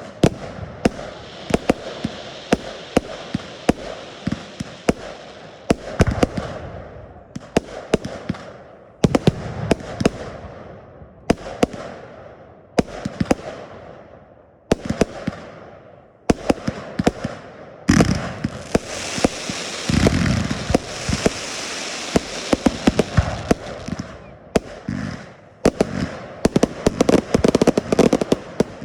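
Fireworks going off in quick succession: sharp bangs every second or two, each fading away. Midway a dense hissing and crackling lasts several seconds, and near the end the bangs come in a rapid volley.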